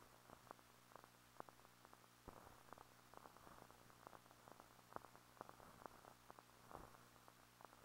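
Near silence: a faint steady low hum with irregular clicks and crackle, the surface noise of an old silent newsfilm transfer.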